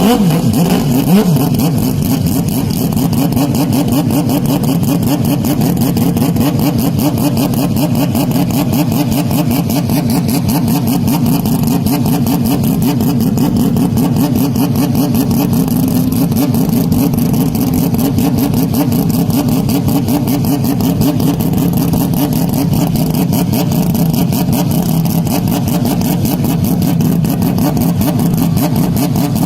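Racing car engine running loud and steady for the whole stretch, its pitch wavering slightly. The sound is heavily overdriven and distorted.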